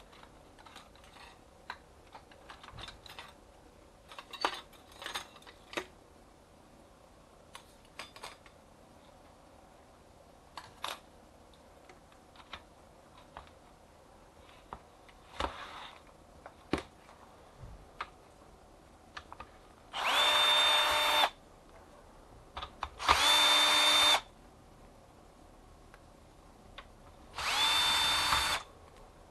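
Cordless drill-driver spinning screws on a copier fuser unit's housing in three short runs of about a second each, a steady whine. Before that, light clicks and taps of small parts and tools being handled.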